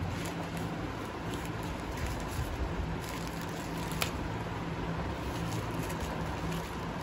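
Scattered rustling and small clicks from a delivery package being handled and opened, over a steady low hum.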